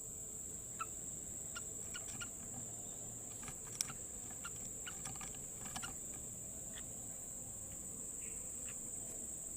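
Steady, high insect chirring, typical of crickets, with a few scattered short chirps and clicks over it; one click a little before four seconds in stands out.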